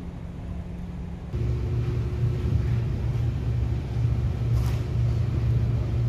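Low, steady machinery rumble with a hum, stepping up louder and changing pitch about a second in.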